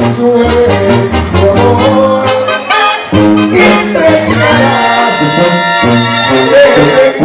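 Live Sinaloan-style banda music: tuba bass line pulsing under trombones and clarinets, with a held brass chord about five seconds in.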